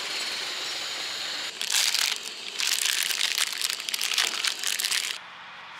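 Plastic noodle pouch crinkling and crackling as fresh noodles are squeezed out of it into a pot, in two stretches from about a second and a half in, cutting off suddenly shortly before the end. Before it, a steady hiss from the pot on the canister gas stove.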